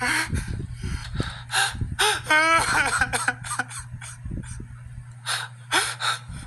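A person crying in distress: sharp gasping breaths and sobs, with a short wavering cry about two seconds in, over a steady low hum.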